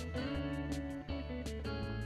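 Background music played on guitar, with a steady beat.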